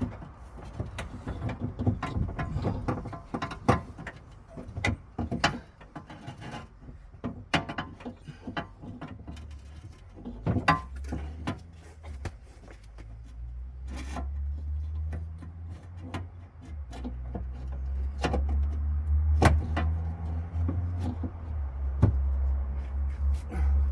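Irregular clicks, knocks and rattles of hands and tools on car door trim and hardware, with a low rumble building in the second half.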